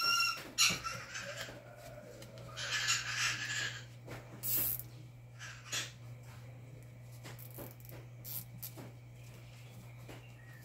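Hands working on motor wiring: scattered clicks and a short rasping stretch about three seconds in, typical of a plastic zip tie being pulled tight around the leads, over a steady low hum. A short high squawk from a pet maritaca parrot comes right at the start.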